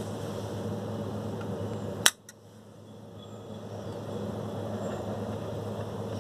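A sharp plastic click about two seconds in, with a fainter click just after, as the hinged front trunk lid of a 1:18 Bburago die-cast Lamborghini Huracán model is snapped shut. A steady low hum runs underneath.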